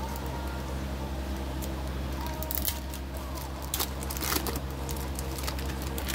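Crinkling foil wrapper of a Pokémon booster pack being handled and torn open, a few sharp rustles around the middle, over a steady low hum.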